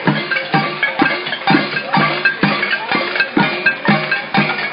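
A marching protest noise brigade's percussion: drums and other struck noisemakers beating a steady rhythm, about two strikes a second.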